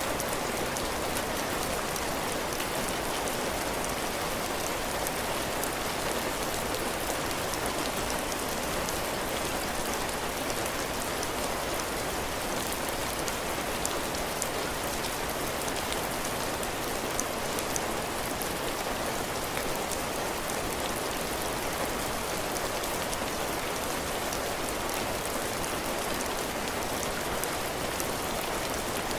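Heavy rain falling steadily on a cabin porch roof and ground: a constant hiss of rain with many fine drop ticks.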